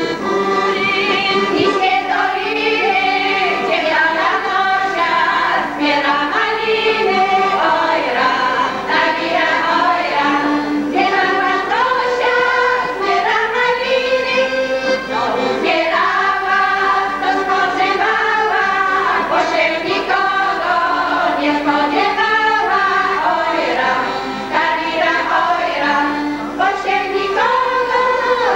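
Women's folk ensemble singing a Polish folk song together in unison.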